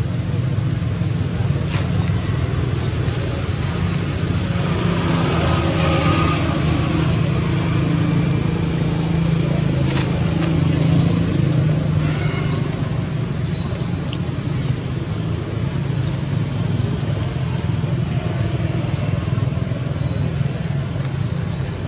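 A steady low engine rumble running without a break, with faint voices in the middle.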